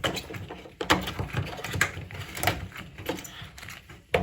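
A plastic washing-machine part being screwed back in clockwise by hand: a series of knocks and scraping clicks about a second apart as it is turned tight.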